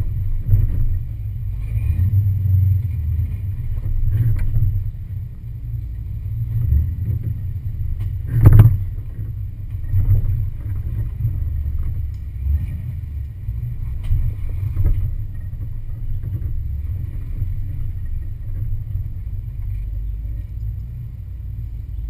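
Lifted Ford Explorer's engine rumbling low and unevenly, swelling and easing as it crawls over rocks. A sharp knock about eight and a half seconds in is the loudest sound.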